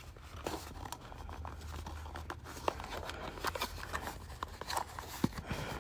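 Cardboard webcam box being handled and pried open: scattered light scrapes, rustles and small clicks of cardboard over a low steady hum.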